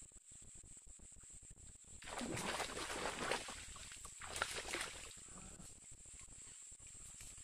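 Snakehead hitting a surface lure and thrashing at the water's surface, heard as two bouts of splashing. The first starts about two seconds in and lasts about a second and a half; the second is shorter, with a sharp slap about four and a half seconds in.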